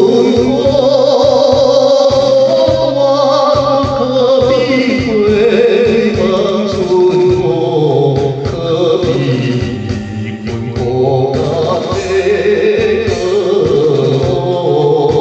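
Taiwanese Hokkien song: a voice sings a slow melody over an instrumental backing with a steady beat.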